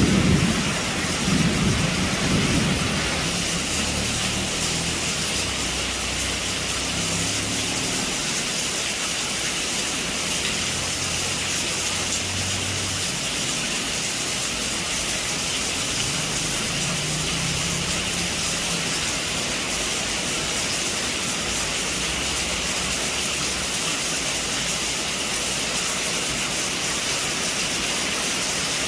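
Heavy rain pouring steadily on a roof, a steady hiss. A thunder rumble fades away over the first few seconds, and fainter low rumbles come and go later.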